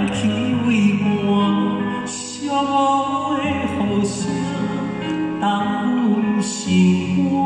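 Male vocalist singing a Taiwanese Hokkien ballad live into a microphone, holding long notes with vibrato over band accompaniment.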